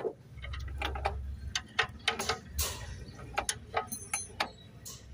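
Gears of a small tractor differential being turned by hand, the crown wheel and side and pinion gears clicking in an uneven run of sharp ticks, about three or four a second. The mechanic says the differential's bearing has failed and that the centre gear rocks back and forth.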